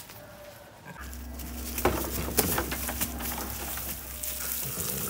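Water spraying from a garden hose onto a sheep's wool, a steady hiss that starts about a second in, with a sheep bleating briefly about two seconds in.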